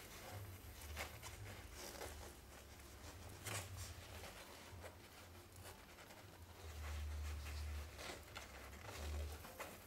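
Faint rustling and scratching with scattered small clicks as newborn Manchester terrier puppies shuffle and nurse on fabric bedding, under a low irregular rumble.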